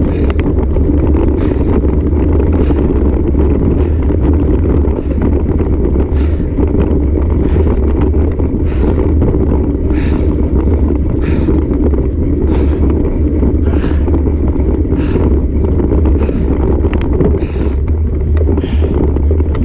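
Wind on the microphone of a bike-mounted camera and the rumble of a bicycle rolling over a dirt and grass trail: a loud, steady low rumble, with a faint hiss recurring about once a second.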